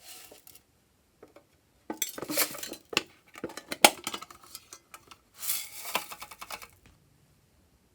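Glossy slime being stirred in a bowl with a utensil: clinks and scrapes of the utensil against the bowl, coming in several bursts with a few sharp clicks.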